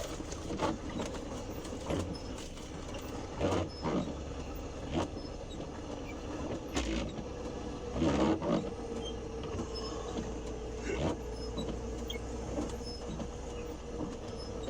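A vehicle engine running with a steady low rumble, scattered clicks and knocks over it, and a steady hum that sets in about halfway through.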